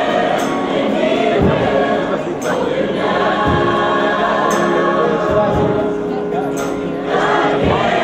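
A choir singing in held chords over a regular beat.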